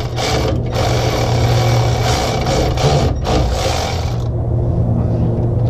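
Milwaukee cordless electric ratchet running in three short runs with brief pauses, backing out a torque converter bolt, and stopping about four seconds in.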